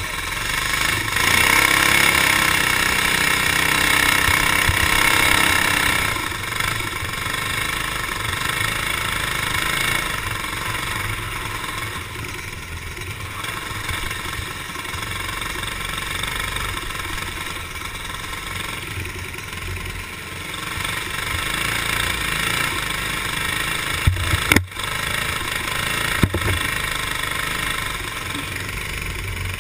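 Racing kart's small single-cylinder engine running under way on a dirt track, heard from on board, loudest for the first several seconds and then steady. A few sharp knocks near the end.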